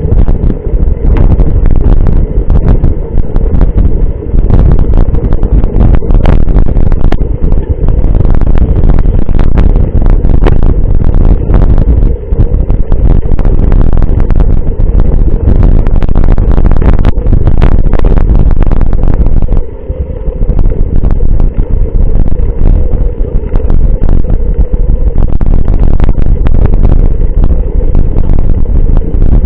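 Heavy wind buffeting and rumble on an action camera mounted on a mountain bike riding rough trail, with frequent rattling knocks from bumps jolting the bike.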